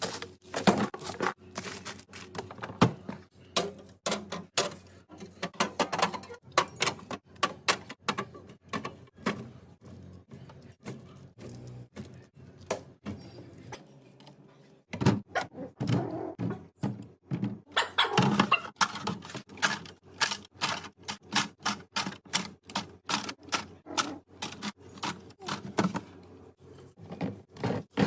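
Restocking a refrigerator: a quick, uneven run of clicks, taps and knocks as food containers and packaging are handled and set onto the shelves, with a brief lull about halfway through.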